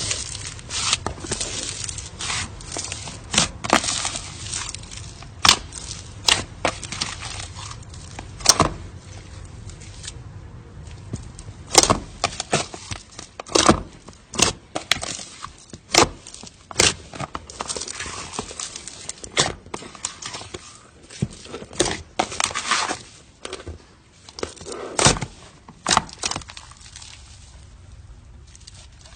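Slime being squeezed and poked by hand, giving irregular sharp pops and crackles.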